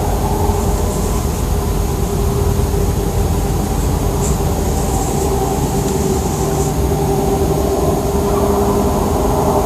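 Constant low, engine-like drone from no identified source: a steady rumble with a held hum on top that neither rises nor falls.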